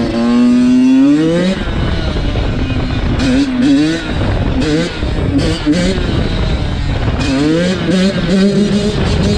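Small two-stroke dirt bike engine, a Yamaha YZ85, revving hard. Its pitch climbs steeply in the first second and a half, then rises and drops again several times as the throttle is opened and eased off.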